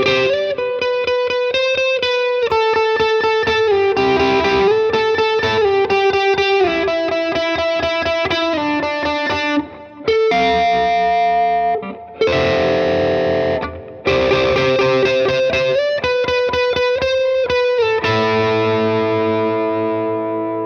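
Electric guitar (Fender Jazzmaster) played through a Klon-style overdrive pedal into a tube amp, giving a light overdriven tone. It plays quickly picked chord figures with a few brief breaks, then a last chord is left to ring out and fade.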